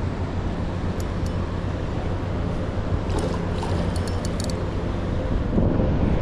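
A steady low engine drone with wind on the microphone, and a few faint high clicks about three to four seconds in.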